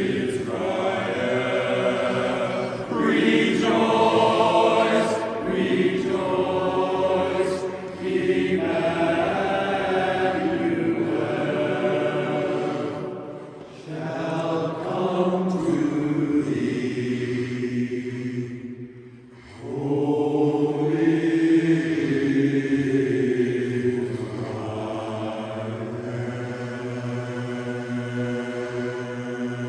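Barbershop chorus singing a cappella in close harmony, in phrases with brief breaks, ending on a long held chord.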